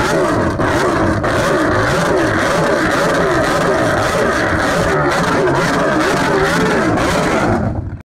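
Vehicle engine revving up and down over and over under a loud, dense wash of noise, cutting off suddenly near the end.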